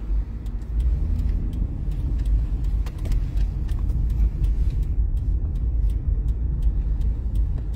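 Car driving on city streets, heard from inside the cabin: a steady low rumble of engine and road noise.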